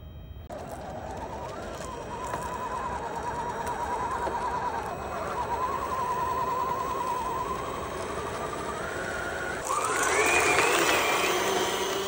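Electric drive motors and gearboxes of a 3D-printed RC tracked skid steer loader whining as it drives, the pitch wavering with the throttle. About ten seconds in, a louder whine rises sharply in pitch.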